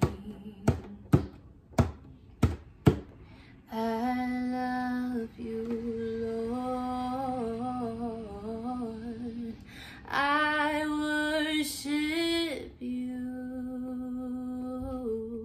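A djembe-style hand drum struck with the hands, about six beats over the first three seconds, then a woman singing long held notes with slides in pitch, the drum silent.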